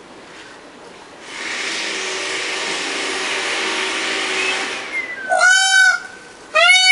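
Peacock (Indian peafowl) giving two loud calls about a second apart near the end, each with a pitch that rises and falls. Before them there is a steady rushing noise lasting about three and a half seconds.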